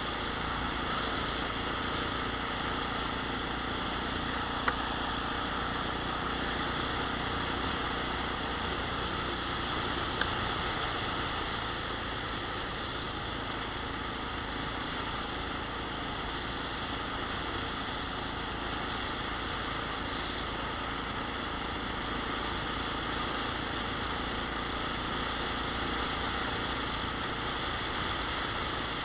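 Steady rush of wind and road noise from a mounted camera on a moving vehicle, with two brief clicks about five and ten seconds in.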